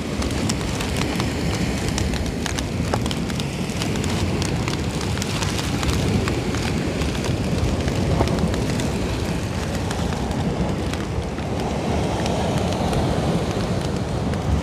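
Steady wind noise rumbling on the microphone, with many small crackles and ticks over it.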